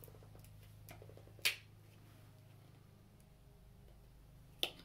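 Sharp clicks of small craft paint bottles being handled, one about one and a half seconds in and another near the end, over a low steady hum.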